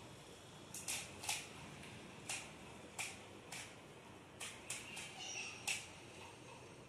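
Skewb puzzle being turned quickly by hand during a speedsolve: a run of about ten sharp plastic clacks at an uneven pace as the corners snap round.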